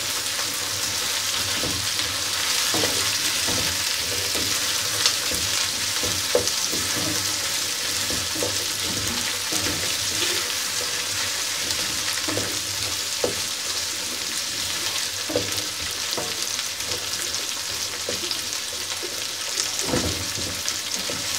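Chopped okra and onions sizzling steadily as they fry in oil in an aluminium pot, while a wooden spatula stirs them and now and then knocks against the pot.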